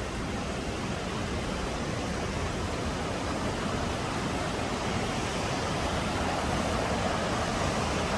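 Rushing water of a waterfall, a steady full hiss that slowly grows a little louder.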